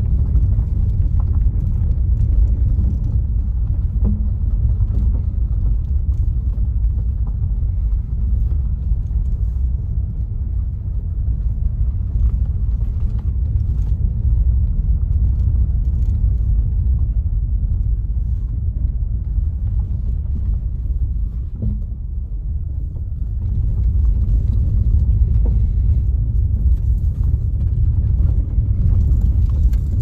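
Steady low rumble of a moving vehicle, easing briefly about two-thirds of the way through.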